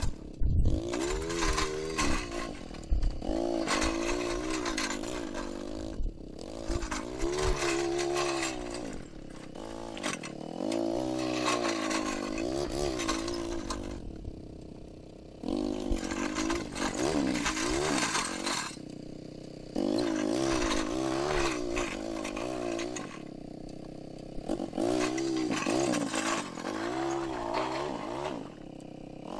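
ATV engine running under load while towing a box blade with rippers down through hard-packed dirt. Its pitch keeps rising and falling with the throttle, with a few short lulls between revs.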